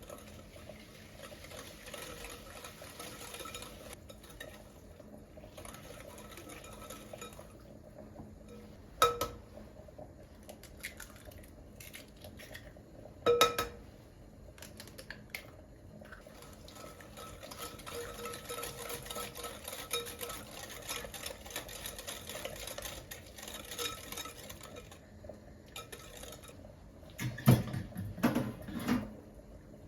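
Kitchen utensils working against bowls and dishes: long stretches of scraping and stirring, a sharp clink about nine seconds in and another about thirteen seconds in, and a cluster of louder knocks of dishes near the end.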